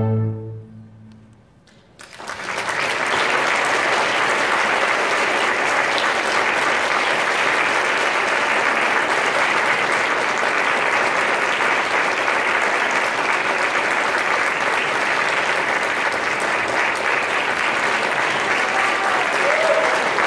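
A symphony orchestra's final chord dies away, then after a second or so of quiet an audience breaks into steady, full applause that holds for the rest of the time.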